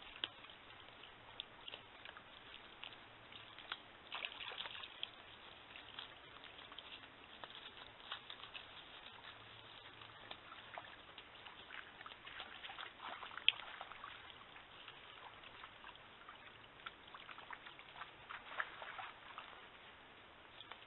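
Faint, irregular trickling and small splashes of water at a shallow pool, with scattered sharp ticks; the loudest tick comes about halfway through.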